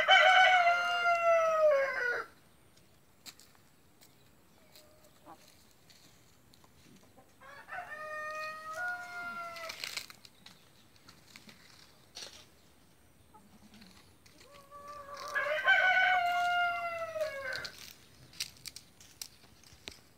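Brahma rooster crowing three times, each crow about two seconds long and dropping in pitch at the end; the second crow, about eight seconds in, is fainter than the others. Faint small clicks fall between the crows.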